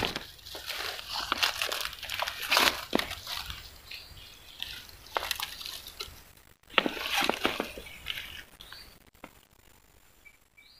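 Irregular rustling and crackling in dry leaf litter and twigs, with some wet, splashy touches. It thins out and fades to near quiet in the last two seconds.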